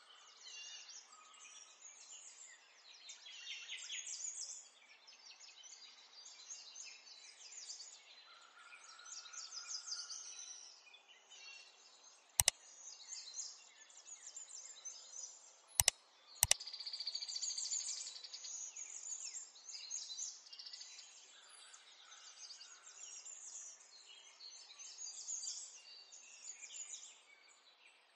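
Birds chirping and twittering continuously. Three sharp clicks cut through, one about twelve seconds in and two close together about sixteen seconds in.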